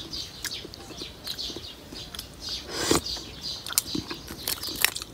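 Ice being crunched between the teeth in a mouthful of saging con yelo: irregular short crackles, with a stronger crunch about three seconds in. Birds chirp faintly in the background.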